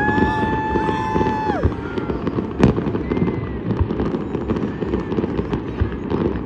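Fireworks and firecrackers popping and crackling continuously, with a sharp bang about two and a half seconds in. A high whistle is held for about a second and a half at the start.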